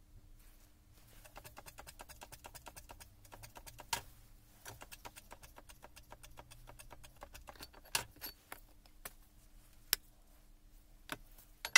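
Quick runs of light metallic clicking and several sharp single metal knocks from tool work on the Hilti TE 700 breaker's aluminium housing, over a steady low hum.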